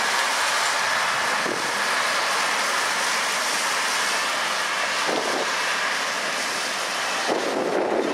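John Deere 8295R tractor pulling an Amadas SPC-6 stalk puller/chopper through cotton stalks: steady engine and implement noise. Wind buffets the microphone in gusts, heaviest near the end.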